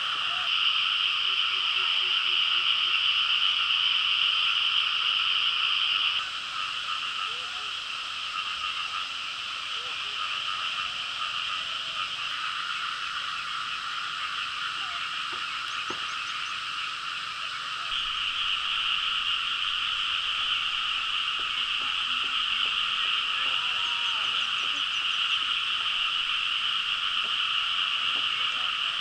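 Dense, steady chorus of many frogs calling together, an unbroken high buzzing trill. It drops somewhat about six seconds in and swells again about eighteen seconds in.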